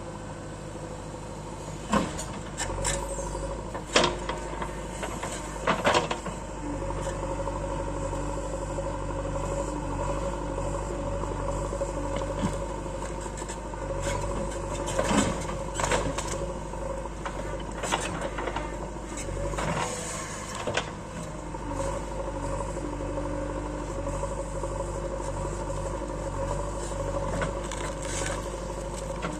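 JCB 3DX backhoe loader's diesel engine running steadily under digging work, with sharp knocks and clanks at intervals, the loudest a few seconds in.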